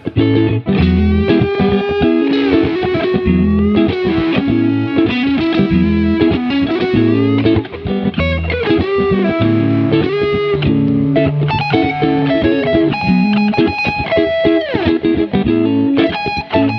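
Instrumental music: electric guitar played through effects, with pitch bends, over bass guitar.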